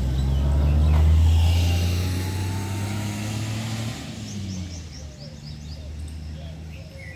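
Low engine hum of a passing motor vehicle, loudest about a second in, then fading and gone about four seconds in.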